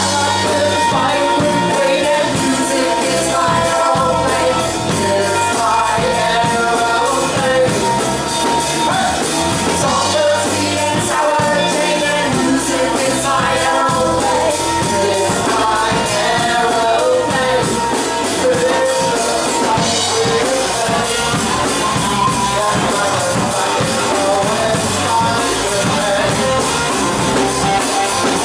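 A rock band playing a song at full volume: drum kit with steady cymbal strokes, guitars and a singing voice.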